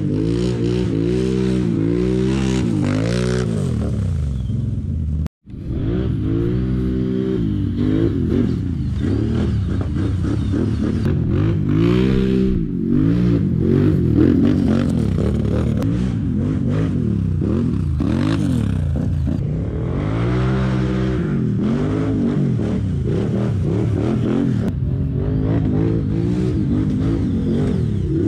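ATV engine revving hard and falling back again and again, pitch swinging up and down in repeated surges. The sound cuts out for a split second about five seconds in.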